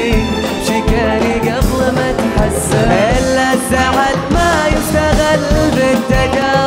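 Live Arabic song: an orchestra's string section and percussion keeping a steady beat, with a man singing over it.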